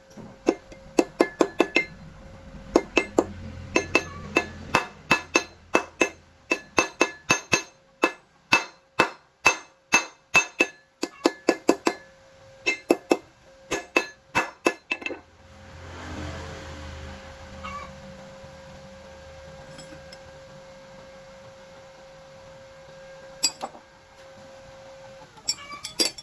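Hammer striking steel bar on metal, a long run of sharp ringing clinks about two to three a second, then a pause with only a low steady background and a few more strikes near the end.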